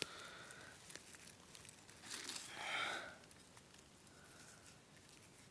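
Faint rustling and crackling of dry pine needles and leaf litter as a hand works a metal spoon loose from between stones. There are a few small ticks, and the sound swells for about a second a couple of seconds in.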